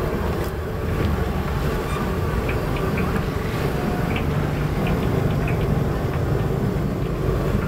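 Battered tempe mendoan deep-frying in a wide steel wok of hot oil, sizzling with faint scattered crackles over a steady low roar from the gas burner beneath.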